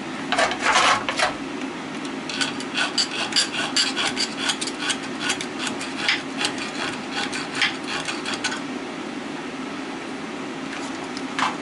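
Small round file rasping in quick back-and-forth strokes on a washing machine motor's enamelled windings: a short scrape about half a second in, then a long run of rapid strokes that stops about eight and a half seconds in. The filing cuts through the enamel to show bare metal, the check for copper or aluminum windings, and these windings turn out to be aluminum.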